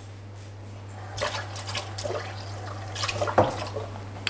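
Pan of orange juice and sugar syrup coming to the boil, starting to crackle and bubble about a second in, over a steady low hum.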